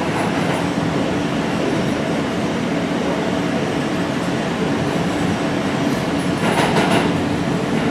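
NYC subway R160 car running on the F line, heard from inside the car: steady rumble of wheels on rail with a constant low hum, and a brief high squeal about six and a half seconds in.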